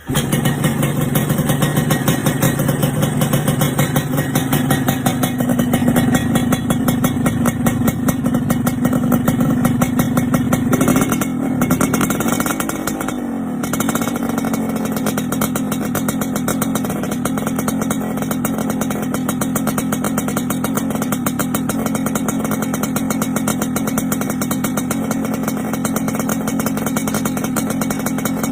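Kawasaki Ninja R/RR's two-stroke single-cylinder engine running through an aftermarket racing exhaust. It starts abruptly, gives one brief rev about eleven seconds in that rises and falls, then settles to a steady, slightly quieter idle.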